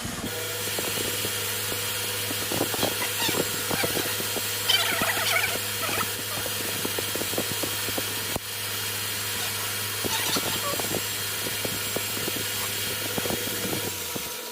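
Metal lathe running with a steady hum, with scattered sharp clicks and two short, high squeals, one about five seconds in and another around ten seconds.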